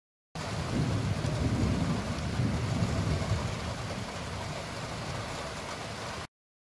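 Distant thunder, a low rumble that swells and slowly fades over a steady hiss. The sound starts abruptly just after the start and cuts off suddenly near the end.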